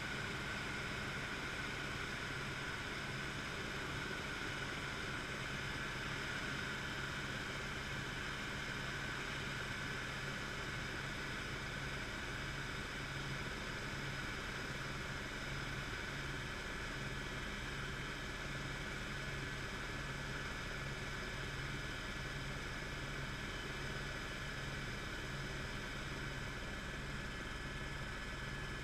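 Helicopter in steady cruise heard from inside the cabin: the engine and rotor make a constant noise with a steady whine on top and a low, regular pulsing underneath.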